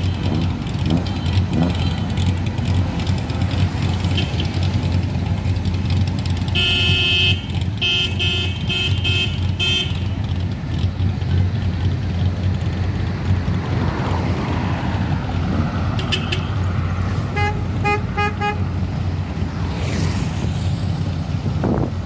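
Car horns honking in runs of short repeated toots over the steady low rumble of a line of idling car engines, with an engine rising in pitch about two-thirds of the way through.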